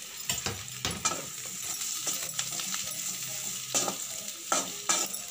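A spatula stirring mashed boiled potatoes into onions frying in oil in a metal kadai, knocking against the pan several times over a steady sizzle.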